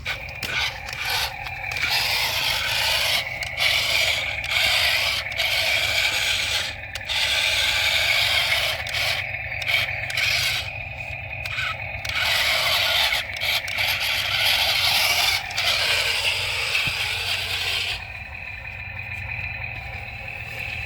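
Toy RC excavator's bucket scraping and digging through sand, in repeated short strokes with brief pauses, over a low steady hum. About three seconds before the end the scraping stops, leaving a fainter steady whine.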